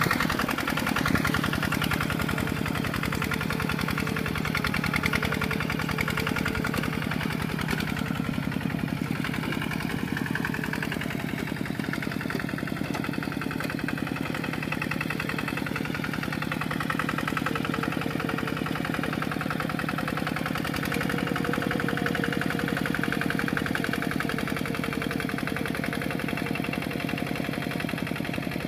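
Two-wheel walking tractor's Kubota single-cylinder diesel engine running steadily with a fast, even chugging as it pulls a tiller through the mud of a flooded rice paddy.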